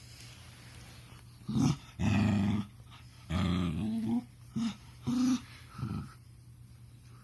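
A puppy making low grunting, growly noises in about six bursts, some brief and some nearly a second long, which the owner likens to a purr or pig noises.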